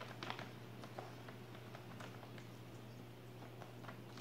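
Plastic fertilizer bags crinkling and rustling in quick irregular crackles as a cat paws at them and noses inside, over a steady low hum.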